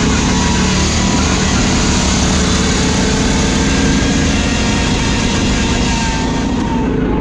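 Riding lawn mower's small engine running steadily at high throttle, loud and close.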